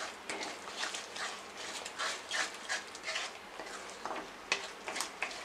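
Wooden spatula stirring and scraping thick masala paste as it fries in a kadai, a run of irregular short scrapes over a faint sizzle. This is the masala being roasted with its spices until the oil separates.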